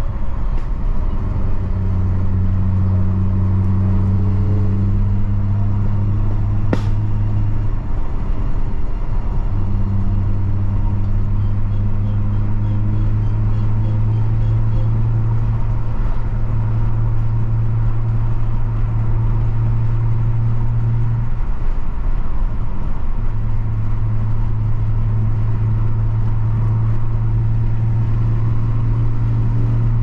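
Cabin sound of a moving BMW E46 325i: its 2.5-litre straight-six drones steadily under way over road and tyre noise, the drone fading briefly twice. A single sharp click about seven seconds in.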